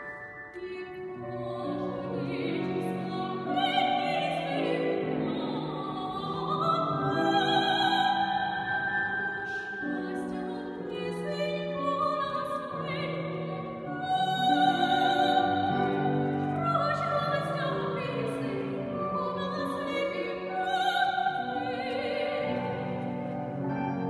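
A female soprano singing a classical romance in operatic style, in long held notes that rise and fall phrase by phrase, with piano accompaniment.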